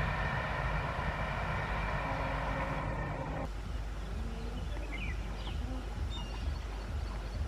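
Train running over an iron girder bridge: a steady rumble with a ringing tone, which cuts off abruptly about halfway through. Then a quieter stretch with a few birds chirping.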